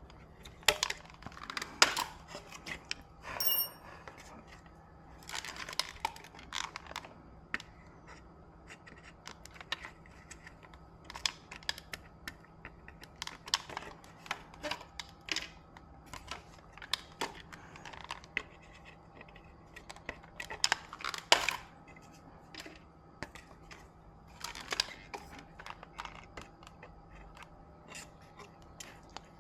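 Irregular clicks, taps and scrapes of tools and small parts being handled on an electronics repair bench, over a steady low hum. A brief high beep sounds about three seconds in.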